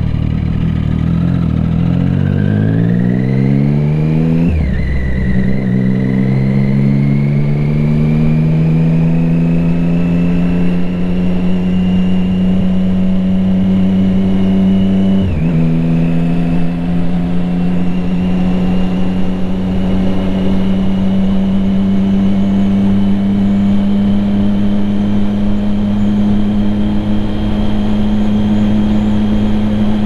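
Triumph Street Triple 675R's inline three-cylinder engine through an Akrapovic exhaust, pulling through the gears. The revs climb quickly, drop sharply at an upshift about four and a half seconds in, and climb slowly again. A second upshift drops them about fifteen seconds in, and then the engine holds a nearly steady pitch at cruise.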